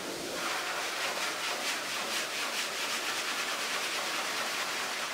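Grooming force dryer blowing air through a dog's thick plush coat: a steady rush of air that flutters in quick, regular pulses.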